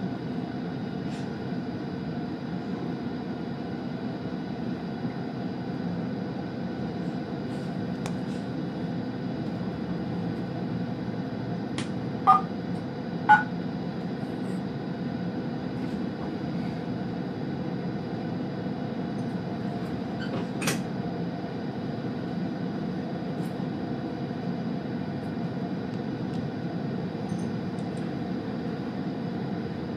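Steady running noise of a train, heard from inside its driver's cab as it runs into a station. Two short beeps come about twelve and thirteen seconds in, and a sharp click follows near twenty seconds.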